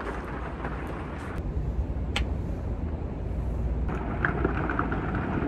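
Steady rain outdoors with a low rumble underneath, and a single sharp click about two seconds in.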